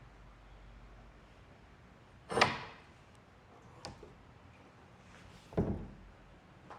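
Wooden parts knocking: two sharp knocks about three seconds apart, with a fainter one between them.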